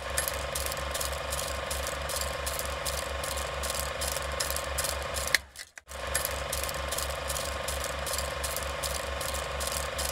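Mechanical ticking sound effect counting down, about four even ticks a second over a steady tone. About five seconds in a sharp click, then a brief drop to near silence before the ticking resumes.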